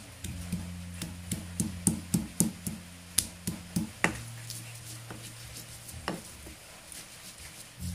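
Stone pestle striking and grinding in a stone mortar (cobek and ulekan), crushing garlic: quick sharp knocks about three a second for the first four seconds, then a few scattered strikes.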